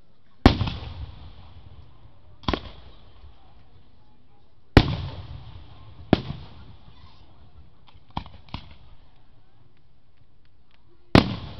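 Aerial fireworks shells bursting: about seven sharp booms spread through the span, each trailing off in a rolling echo, the loudest about half a second in, in the middle, and near the end, with two quick ones close together after about eight seconds. A few faint small pops sound between the booms.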